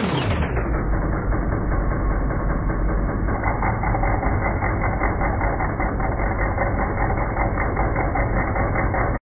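Bench grinder running, muffled, with a mild steel washer ground against the wheel from about three seconds in for a spark test. The sound cuts off abruptly near the end.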